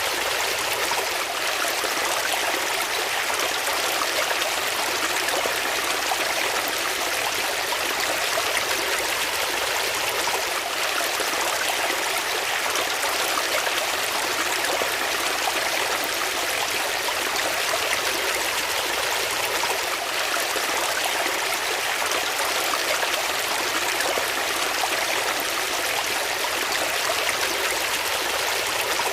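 Water flowing steadily in a stream: an even rushing and trickling hiss that does not change.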